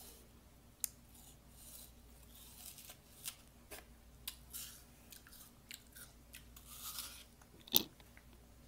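Biting into a raw apple and chewing it with irregular crisp crunches, close to the microphone; one sharp, loud crunch near the end.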